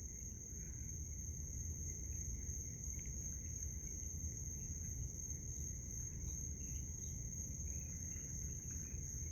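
Crickets chirring as one steady high-pitched tone, over a low background rumble, with a few faint short squeaks.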